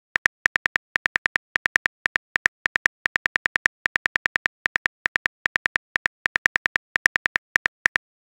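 Phone on-screen keyboard typing clicks, a quick run of short, crisp ticks at about six a second in slightly uneven runs, stopping just before the end.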